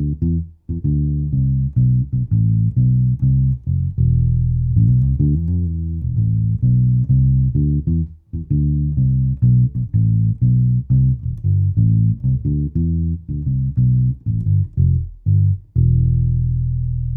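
Fretless Tiny Boy Bass mini bass with flatwound strings played solo: a plucked bass line of quick notes with a few sliding notes, ending on a long held note near the end.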